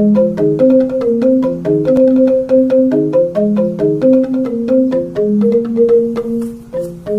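Instrumental music: a flowing melody of quick struck notes over lower chords, sounding like mallet percussion.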